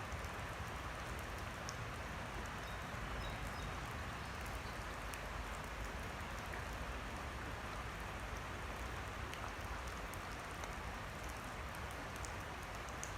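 Steady rain falling on a creek, an even hiss with many small sharp drop ticks scattered through it.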